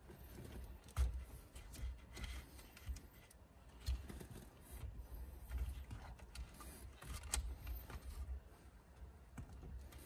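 Faint handling noises as a wiring harness is pulled down through a truck's steering column by a string: scattered light clicks and rustles of the wires and connector pins against the column, with a few soft knocks.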